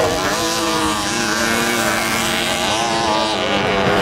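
Several 50 cc two-stroke racing moped engines revving hard under load, their overlapping pitches rising and falling with the throttle.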